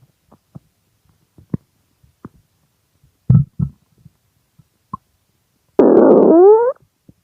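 Hungry stomach growling: scattered small gurgles and pops, two louder gurgles about halfway through, then a long growl of nearly a second near the end that rises in pitch.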